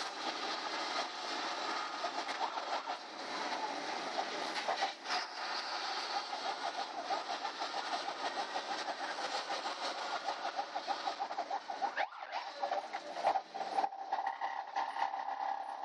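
Ride noise inside a moving school bus: the body, seats and windows rattle and clatter steadily over engine and road noise.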